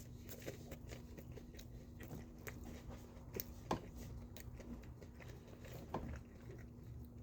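A person chewing a bite of food close to the microphone: soft, wet mouth clicks, with a sharper click about three and a half seconds in. A faint steady hum runs underneath.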